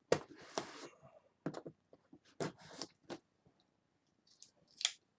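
Cardboard subscription box and its packing being opened and handled by hand: short rustles, crinkles and clicks at irregular intervals, the loudest right at the start.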